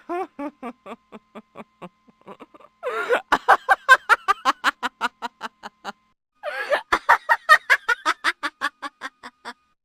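A woman laughing in three bouts of rapid, high-pitched "ha-ha" pulses, about five a second: one trailing off, then two loud fits of laughter that each fade out.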